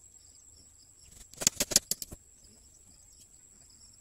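A quick clatter of about six sharp knocks within a second, over a steady high insect drone with faint repeating chirps.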